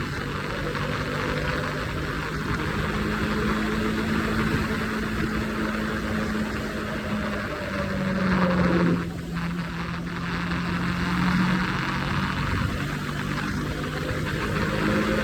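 Triumph Scrambler 400X single-cylinder engine running steadily at highway speed over a constant rush of wind. The engine note drops briefly about nine seconds in, then settles back to a steady pitch.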